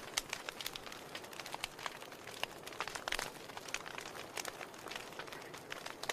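Wood fire in a fireplace crackling: irregular small pops and snaps from the burning logs over a soft steady hiss, with a run of louder snaps about halfway through.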